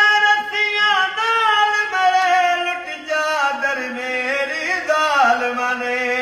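A man singing unaccompanied in a high, strong voice, holding long notes with sliding, wavering ornaments between them.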